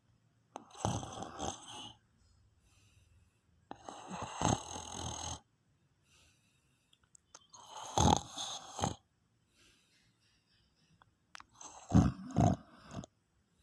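A sleeping man snoring: four loud, rattling snores, one about every four seconds, with quiet breathing pauses between.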